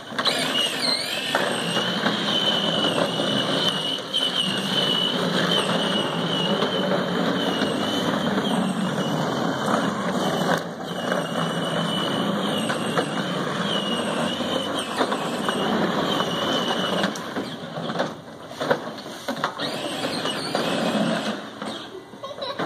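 Battery-powered ride-on toy train driving: its electric motor and plastic gearbox whine steadily while the plastic wheels rumble over concrete and grass. The whine stops about three-quarters of the way through, leaving a rougher, uneven rumble.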